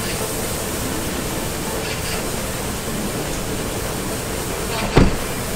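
Steady hiss of pressure-washer spray in a self-service car wash, with a single thump about five seconds in.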